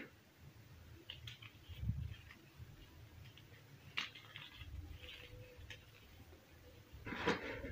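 Hands crushing and crumbling soft slabs of cornstarch and gym chalk, giving scattered soft crunches and the rustle of powder sifting between the fingers. A sharper crackle comes about four seconds in, and a louder crumble near the end.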